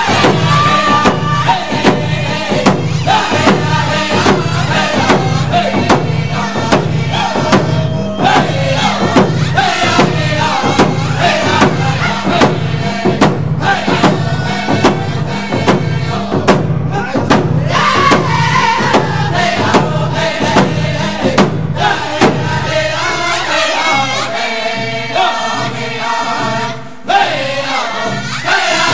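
Recorded song: a group of voices singing a chant together over a steady, even drumbeat. About three-quarters of the way through, the drumming changes and its deep low tone drops away while the singing carries on.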